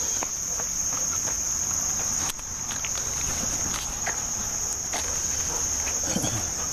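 A steady, high-pitched chorus of insects trilling in the summer vegetation, with scattered faint light clicks and rustles over it.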